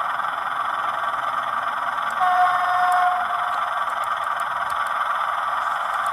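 Simulated IFA diesel engine sound from a model railcar's TBS Mini RC sound module, playing steadily through a small loudspeaker with no deep bass. A brief steady tone sounds for about a second a little after two seconds in.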